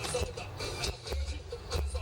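Music with a heavy bass beat and a singing voice, playing from a car sound system.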